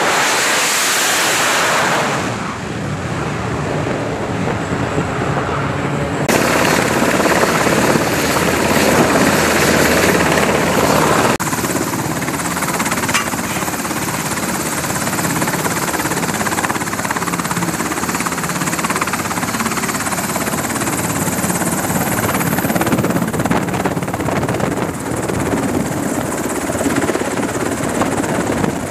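Carrier jet engines at high power beside a steaming catapult for the first couple of seconds. After a run of abrupt cuts, it gives way to a Navy MH-60 Seahawk helicopter's rotors and turbine engines running steadily on the flight deck.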